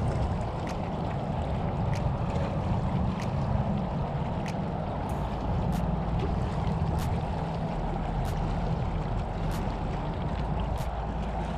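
Wind on the microphone and small waves lapping on a rocky shoreline, a steady rumbling hiss, with a light click about every second and a quarter.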